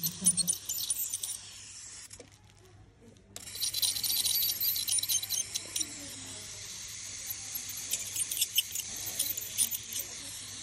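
Ultrasonic dental scaler tip working along a dog's teeth under its water spray: a high hiss with rapid metallic clicking and chattering where the tip touches the teeth. It stops for about a second and a half about two seconds in, then starts again.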